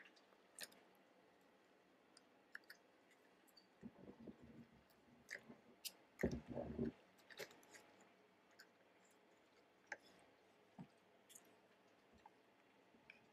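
Faint clicks of a knife and carving fork against a cooked chicken and a wooden cutting board, with a short stretch of crunching and tearing about six seconds in as the bird is cut down the breastbone and pulled apart.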